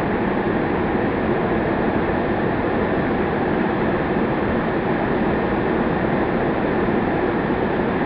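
Waterfall pouring down a steep rock face: a steady rush of falling water, even in level throughout.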